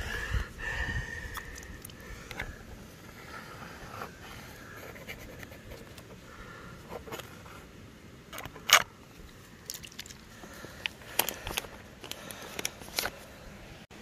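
Handling sounds of a plastic snuffer bottle being squeezed and worked in the water of a plastic gold pan to suck up fine gold specks: scattered small clicks and scrapes, the sharpest about two-thirds of the way through and a cluster near the end.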